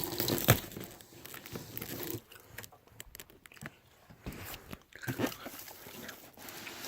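Cardboard box and packaging being pulled open and handled: irregular crunching and crinkling, with a sharp snap about half a second in and quieter rustles after it.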